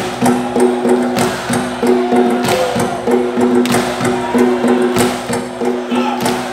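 Live African hand drumming: sharp drum strikes in a quick, steady rhythm over a repeating low pitched pattern.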